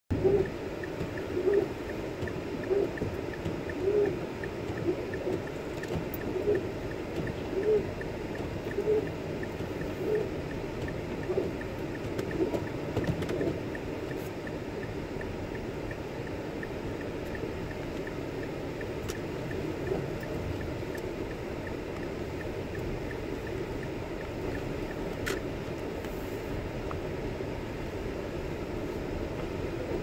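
Inside a car driving in snow: the windshield wipers moan on the glass with each sweep, a short tone about once every second and a bit, for roughly the first thirteen seconds. Steady road and engine noise runs underneath throughout.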